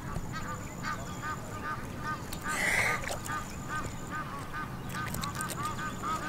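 White domestic goose giving a steady run of short, soft honks, about three a second, with a brief burst of noise about two and a half seconds in.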